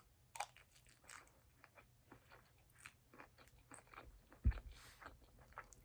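A person chewing and biting a mouthful of poke bowl close to the microphone: a quiet run of wet clicks and small crunches. One low thump about four and a half seconds in.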